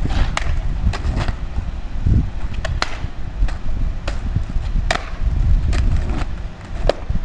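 Skateboard deck clacking against an asphalt street as freestyle flip tricks are popped and landed. About a dozen sharp, irregular clacks sound over a steady low rumble.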